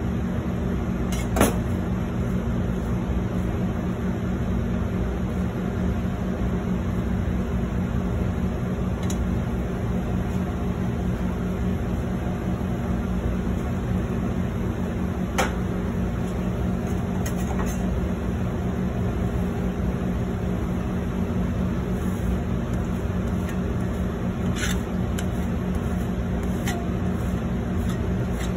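Steady low hum of commercial kitchen equipment over a hot dosa griddle, with a few sharp clicks of a metal utensil against the griddle, the loudest about a second in.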